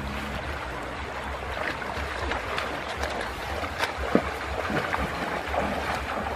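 Shallow river water running over stones, with splashing from feet wading through it; one sharper splash about four seconds in.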